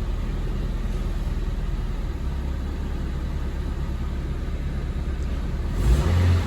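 Honda Civic engine running steadily with the air conditioning on and its accessory drive belt freshly tightened; no belt noise is heard. A louder low rumble comes in near the end.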